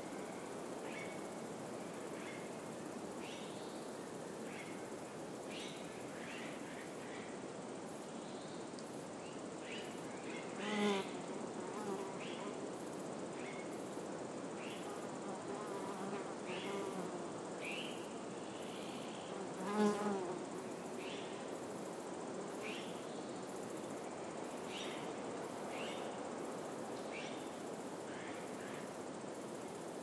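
A flying insect buzzing close past the microphone twice, swelling briefly about ten and twenty seconds in, over a steady hiss of wind in the pines. Short faint chirps recur about once a second throughout.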